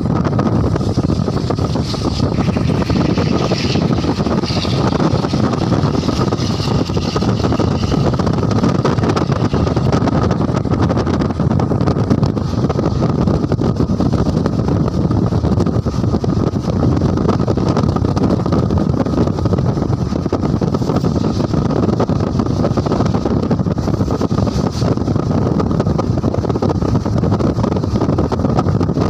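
Steady running noise of a moving open vehicle: engine and road rumble with wind buffeting the microphone, unbroken and even, with a faint steady whine running underneath.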